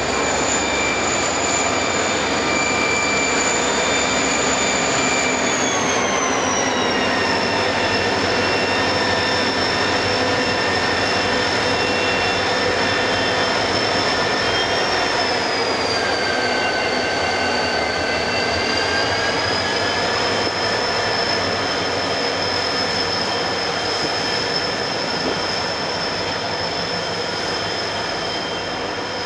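Norfolk Southern freight train with EMD SD40-2 locomotives rolling past, its steel wheels squealing steadily in several high tones over the rumble of the cars. The squeal drops in pitch about six seconds in and again around sixteen seconds.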